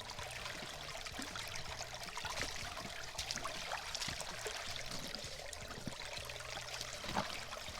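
Creek water running steadily, with scattered light clicks and taps through it, a slightly louder one about seven seconds in.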